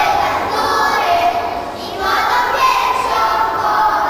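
A group of young children singing a song together in held, sung phrases, with a short break between phrases about two seconds in.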